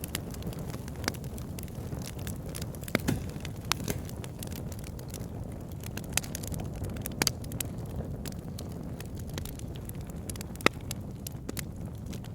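Wood fire crackling in a fireplace: a steady low rumble of flames with frequent sharp pops and snaps, a few louder ones scattered throughout.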